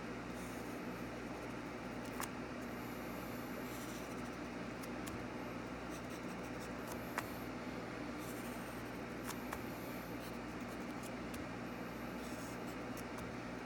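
Wooden pencil scratching across paper in short, intermittent strokes over a steady background hiss, with a few small clicks, the sharpest about seven seconds in.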